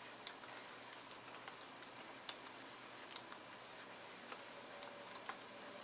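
Stylus tip tapping and clicking on a pen-display screen as lines are drawn: irregular light ticks, a handful standing out, over a faint steady hiss.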